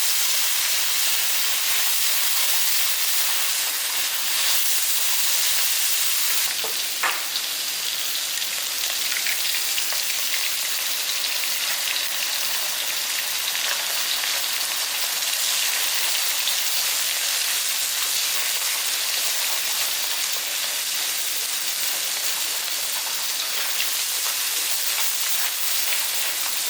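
Chicken, shrimp and freshly added garlic frying in hot oil in a pan: a steady sizzle, with one short knock about seven seconds in.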